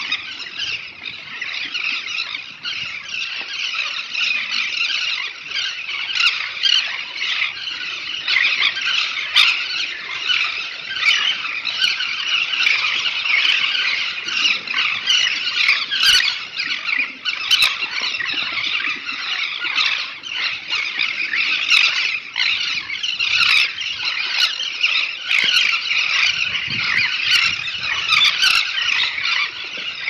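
A large colony of elegant terns calling all at once: a dense, unbroken chorus of high, overlapping calls.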